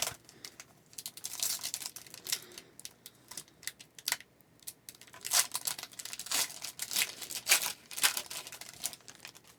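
A 2021-22 Upper Deck Series 1 hockey card pack being torn open, its plastic wrapper crinkling in a string of short rustling bursts that come thickest in the second half.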